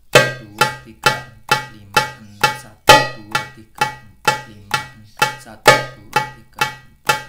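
Darbuka played with single-finger strokes at a slow, even pace of about two a second, in groups of six with the first stroke of each group accented louder. This is a left-hand finger-loosening drill.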